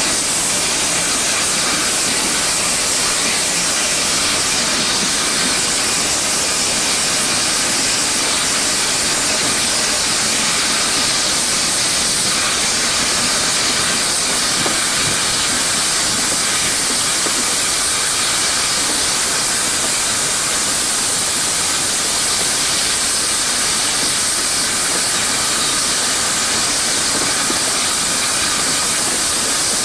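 Steady rushing noise of a steam-hauled train on the move, heard from an open carriage window, with the hiss and exhaust of the three locomotives at its head blending into one continuous sound.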